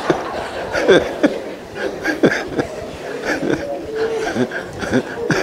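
A congregation laughing and chuckling, with scattered murmured voices.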